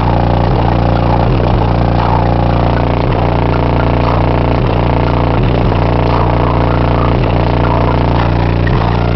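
Loud bass-heavy music playing through the car stereo's 18-inch subwoofer inside the SUV's cabin, with deep sustained bass notes and drum hits repeating every half-second to a second.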